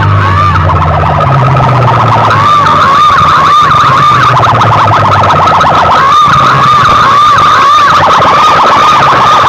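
Siren-style DJ track blasted through a large competition loudspeaker rig: a fast, evenly repeating warbling whoop over a heavy deep bass, very loud.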